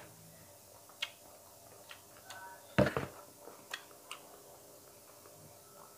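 Eating sounds: a few soft clicks and a short clink of a plastic spoon against a dinner plate, with one louder knock about three seconds in.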